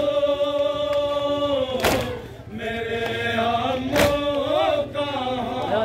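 A group of men chanting a Shia noha lament in unison, holding long notes, with a sharp collective chest-beating slap (matam) about every two seconds.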